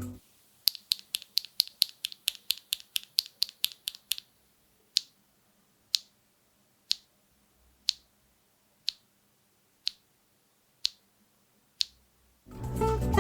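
Factory-lubed BSUN Jade Rosales linear mechanical keyboard switches being pressed in a sound test, making sharp, short clacks. First comes a rapid run of about six presses a second for roughly three and a half seconds, then eight single presses about a second apart.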